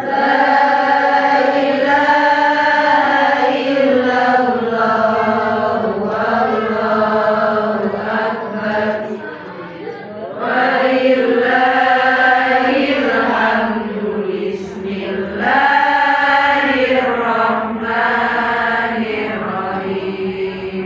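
A single voice chanting Qur'an recitation in long, drawn-out melodic phrases. New phrases begin after short breaks about ten and fifteen seconds in.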